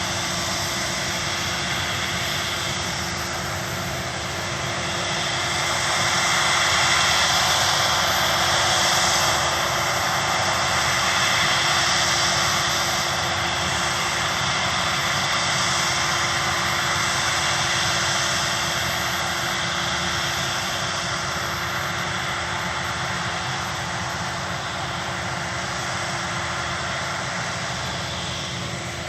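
Claas Lexion combine harvester working in the field, a steady mechanical drone that grows louder about five seconds in and eases off slowly toward the end.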